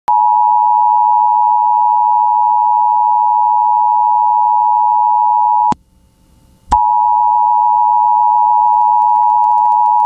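Emergency Alert System attention signal: a loud, steady two-tone beep. About halfway through it breaks off with a click, stops for about a second, and resumes with another click.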